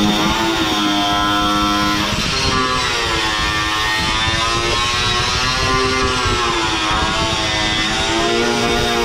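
DeWalt angle grinder with a wire wheel running against a sheet-metal seam packed with body filler; its motor pitch sags and recovers as the wheel is pressed in and eased off, over a steady gritty hiss.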